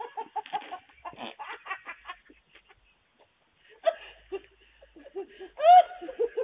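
A woman laughing in short, high-pitched bursts. There is a pause about halfway through, and the loudest, longer burst of laughter comes near the end.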